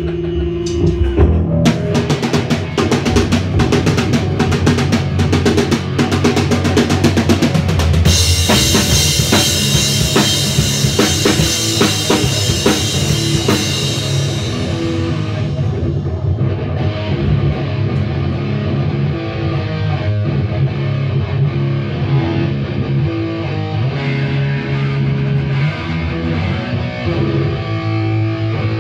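Live band jamming on a Mapex drum kit, bass drum and snare, with sustained guitar notes underneath. A steady cymbal wash comes in about eight seconds in and falls away around fifteen seconds.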